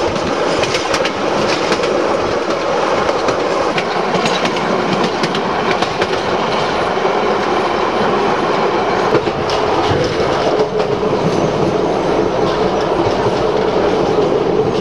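Narrow-gauge steam excursion train running along the track: a steady rumble of wheels on rail with scattered sharp clicks.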